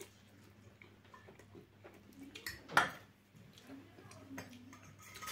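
Quiet eating sounds at a table: chewing and small clicks of a fork against a steel bowl, with one short louder noise nearly three seconds in.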